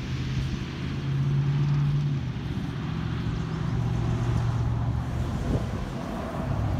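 A vehicle engine running steadily at low revs, its hum stepping down slightly in pitch about three seconds in.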